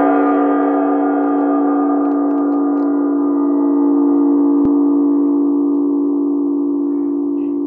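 A Buddhist gong ringing on after a single strike, a rich chord of steady overtones slowly dying away. The higher tones fade first and leave a low hum. There is a faint tick about four and a half seconds in.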